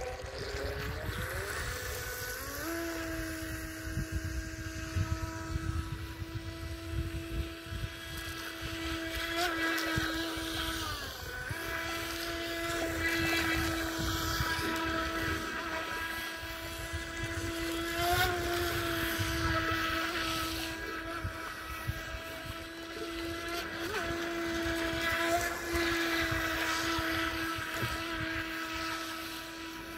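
Small electric motor of an HJ808 RC speed boat whining as it drives across the water. The whine rises in pitch over the first couple of seconds, then holds steady, with a short break about 11 seconds in.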